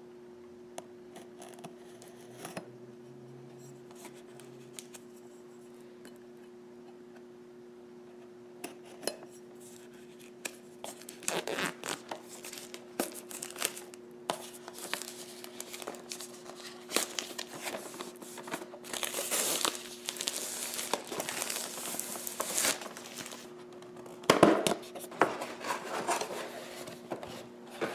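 Clear plastic shrink-wrap being slit with a metal pen and torn off a cardboard box, crinkling and rustling in busy, irregular bursts from about a third of the way in, with sharp clicks of the tool and the box. Before that there is mostly a steady low hum, and the cardboard box is handled with a louder knock near the end.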